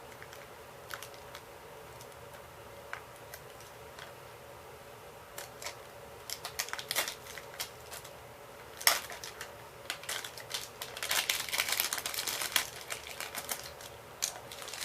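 Plastic wrapping on a Mini Brands capsule being handled and peeled, crinkling and crackling in quick sharp clicks. Sparse at first, with one loud snap near the middle and the busiest crackling in the last few seconds, over a faint steady hum.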